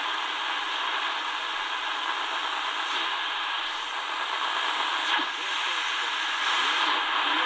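Shortwave static hissing steadily from a Tecsun DR-920C portable radio's small speaker as it is tuned slowly across the 25-metre band, with a weak station faintly showing under the noise.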